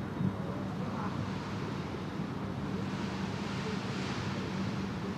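Steady stadium ambience: a low, even hum under a wind-like rush on the microphone, with one faint knock just after the start.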